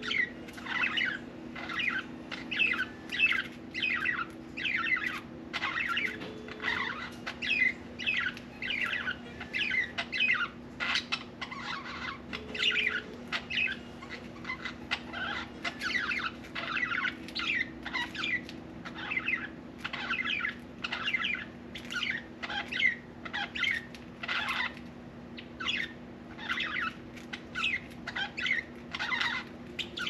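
Budgerigar chattering: a continuous run of short chirps and warbles, over a steady low hum.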